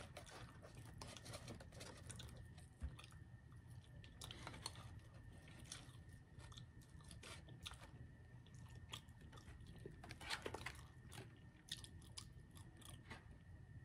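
Faint, close-up mouth sounds of a person chewing crunchy fried chicken: irregular soft crunches and wet clicks, a little louder about ten seconds in.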